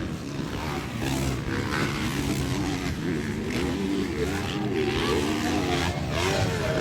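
Motocross bike engines racing on the track, their pitch rising and falling as the riders open and close the throttle.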